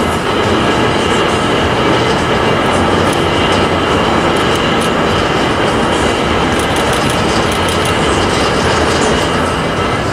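Steel rolling-lift railroad drawbridge lowering: a loud, steady mechanical rumble with scattered clicks and a faint metallic squeal.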